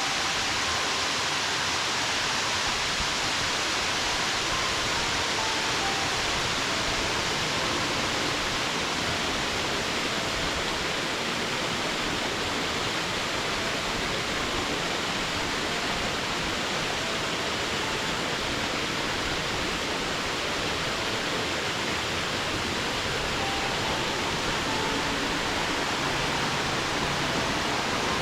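Waterfall: water falling and splashing onto rock and pool in a steady, unbroken rush.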